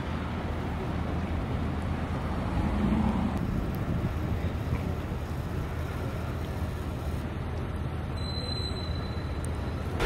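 Steady low rumble of road traffic and idling vehicles, swelling briefly about three seconds in.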